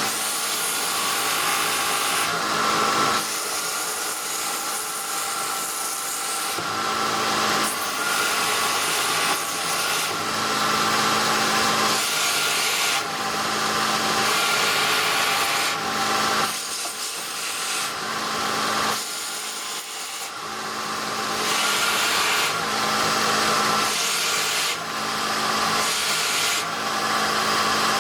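Pheer PH 454 belt grinder running, with a steady motor and drive whine under it. A rasping rub surges and fades every few seconds as the running abrasive belt is pushed and twisted sideways to test its tracking; the belt stays on.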